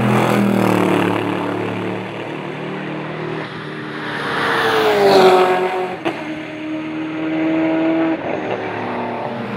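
GT race cars running at full throttle past the track. About five seconds in, one car goes by loudly and its engine pitch drops sharply as it passes. A brief sharp crack follows, then a car holds a steady engine note as it pulls away.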